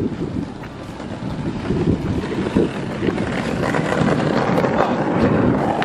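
Skateboard wheels rolling fast over rough, rocky tarmac, with wind buffeting the microphone; the noise grows louder about halfway through.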